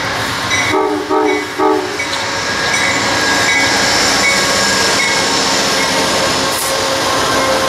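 Amtrak GE Genesis P42DC diesel locomotive sounding three short horn blasts a little under a second in, with a bell dinging repeatedly. It then passes close by at speed, its engine and wheels on the rails making a steady, loud rushing clatter that grows louder.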